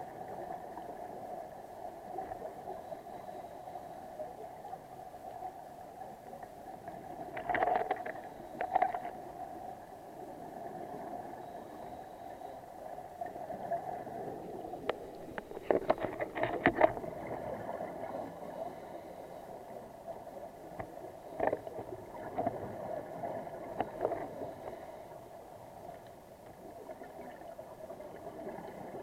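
Underwater sound on a scuba dive: the steady hum of a boat's engine heard through the water, with a scuba diver's exhaled bubbles crackling out of the regulator in bursts about every seven or eight seconds.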